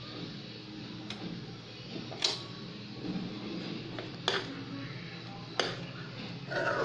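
A metal spoon stirring thick syrup in a metal pot, knocking sharply against the pot four times, a second or more apart.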